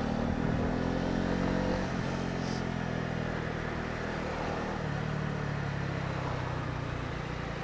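Honda CB125R's single-cylinder 125 cc four-stroke engine running on the move, its note easing gently lower over the first few seconds and then holding steady.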